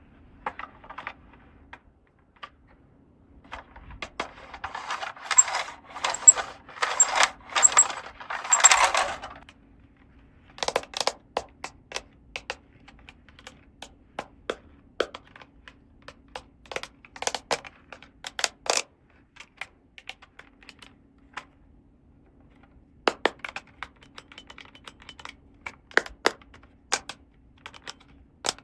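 Small hard plastic toy pieces being handled and set down, making sharp clicks and taps. A denser stretch of crinkling and clattering comes about four to nine seconds in.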